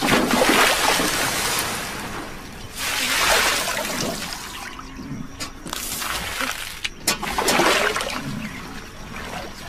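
Water sloshing and trickling in several surges a few seconds apart, with quieter stretches between.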